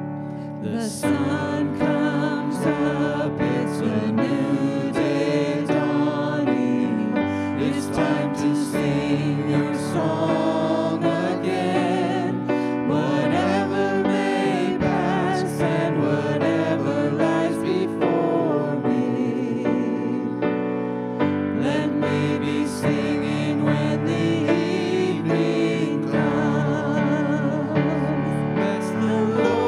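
Worship team performing a praise song: several voices singing with vibrato over piano or keyboard, with regular percussion strokes.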